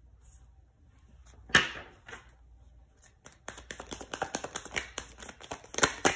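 Tarot cards handled on a tabletop: one sharp slap of a card about a second and a half in, then a run of quick clicks and taps through the second half.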